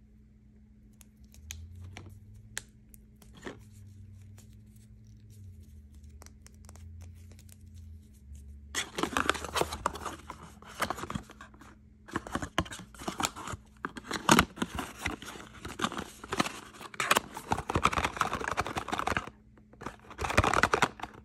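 A small paperboard box and its paper packaging being handled and torn open, giving long stretches of dense crackling and crinkling. Before that, about the first eight seconds hold only a few light taps.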